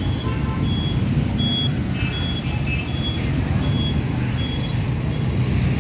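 City street traffic: a steady low rumble of engines, with a short, high electronic beep repeating about every three quarters of a second.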